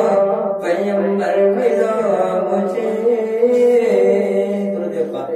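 A man singing a naat (an Urdu devotional poem in praise of the Prophet) into a handheld microphone, in drawn-out, wavering notes.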